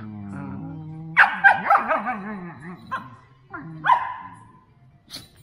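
Standard poodles vocalizing in play while wrestling: low, wavering grumbles and whines, broken by a few sharper, louder yips about a second in and again near four seconds.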